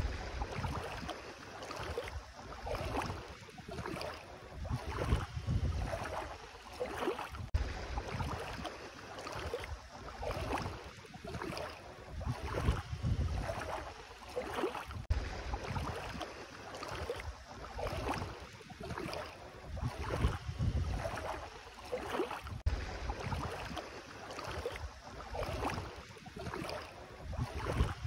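Bare feet wading through ankle-deep sea water, a swish and splash with each step, roughly one step a second, with some wind on the microphone.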